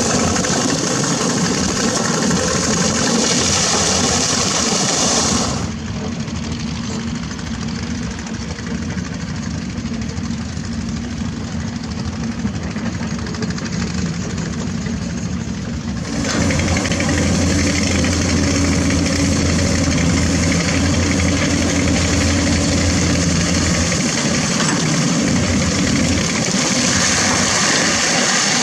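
Diesel engines of hydraulic crawler excavators, a Komatsu PC200 and a Doosan, running steadily at work. From about six seconds in, for some ten seconds, the engine sound is more distant and muffled, then it comes back close with a strong low hum.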